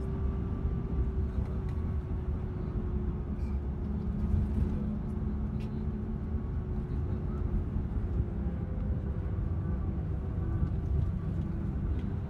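Steady low rumble of engine and road noise inside a moving road vehicle, with a faint steady hum above it.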